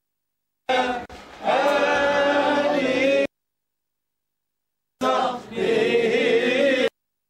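Men's voices chanting a religious phrase together in unison, heard as two held phrases, each ending abruptly.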